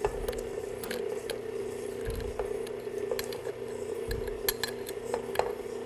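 KitchenAid stand mixer's motor running steadily on low speed, a constant hum, beating eggs in its stainless steel bowl. Scattered light ticks come through as sugar is poured in gradually.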